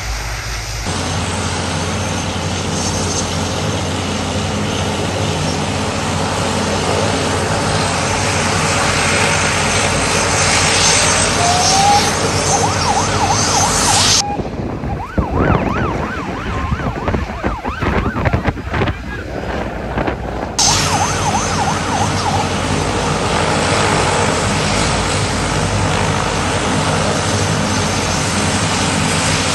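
A De Havilland Canada Dash 8 Q300's twin turboprop engines running as the airliner taxis, mixed with the rushing spray of airport fire-truck water cannons giving it a water salute. For several seconds mid-way the sound turns muffled and buffeting.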